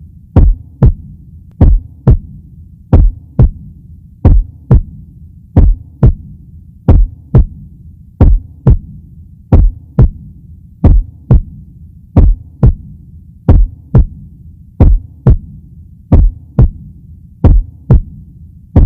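Slow heartbeat sound, a steady 'lub-dub' of paired low thumps about every 1.3 seconds, over a low steady hum.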